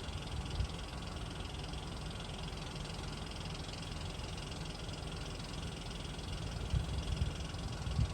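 Steady outdoor background hiss with a low rumble, with wind bumping the microphone a few times near the end.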